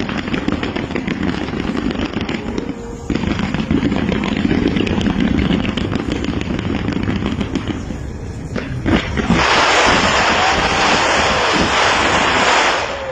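Fireworks display: dense crackling and popping with a few sharper bangs, then a loud, steady crackling hiss from about nine seconds in that cuts off shortly before the end.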